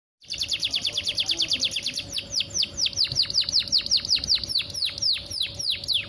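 Domestic canary singing a fast, tight trill of repeated downward-sweeping whistled notes, the 'speed rapat' style, very quick at first and slowing slightly after about two seconds. A faint steady hum runs underneath.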